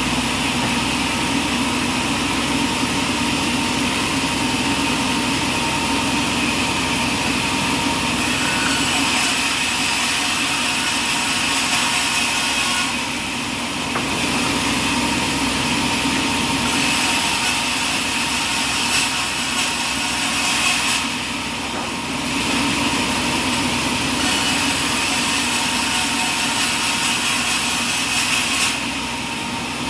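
Sawmill running, its saw blade cutting through an oak log, with a steady engine or motor sound and a high sawing hiss that drops away briefly three times.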